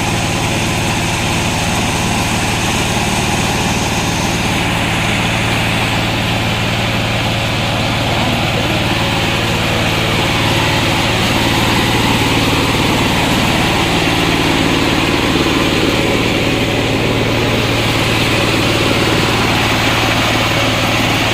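Engine of a homemade circular-saw rig running steadily with a continuous low hum, getting a little louder about ten seconds in.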